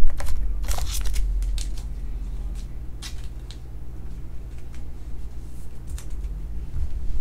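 Thin plastic card sleeve crinkling and crackling as a trading card is slid into it and handled. There is a quick run of sharp crackles in the first second or so, then a few scattered ones, over a steady low hum.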